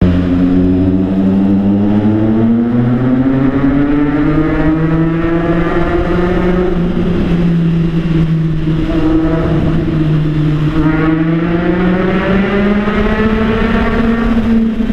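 Triumph Tiger Sport 660 inline-three engine running loud through an Orion aftermarket exhaust, its note rising for a few seconds, dropping back about midway, then climbing again near the end.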